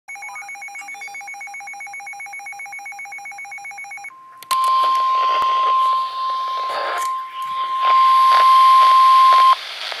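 Rapid, evenly pulsing electronic beeping for about four seconds, then a weather-radio warning alarm tone: one steady high tone, about 1050 Hz, held for about five seconds over a crackling hiss and cut off suddenly near the end. It is the alert signal that comes before a severe thunderstorm warning.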